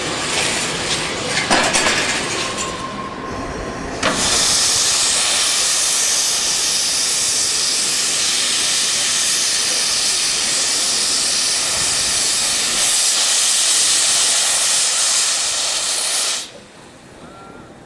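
Steam escaping from beneath the front of a saddle-tank steam locomotive standing still: a loud, steady hiss that starts abruptly about four seconds in and cuts off suddenly near the end.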